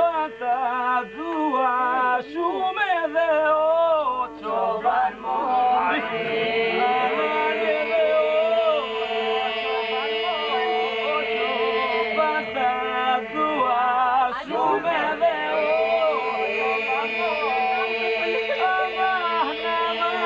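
Men singing unaccompanied: a lead voice winding up and down, with a steady drone held beneath it from about four seconds in, in the manner of south Albanian iso-polyphonic song.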